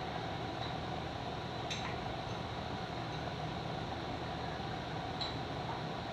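Steady low background hum in a workshop, like a running fan, with a few faint light clicks.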